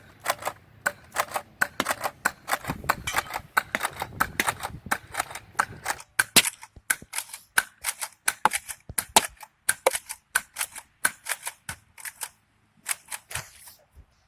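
A long run of sharp snapping shots from a toy foam-dart blaster fired again and again at a full aluminium can, about three or four a second, irregular.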